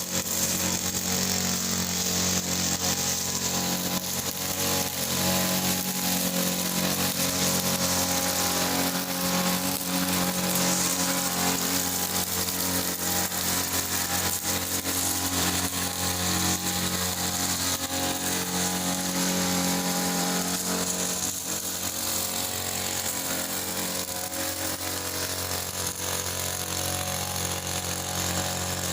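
Small engine of a three-wheeled push grass cutter running steadily, its note dipping slightly about two-thirds of the way through.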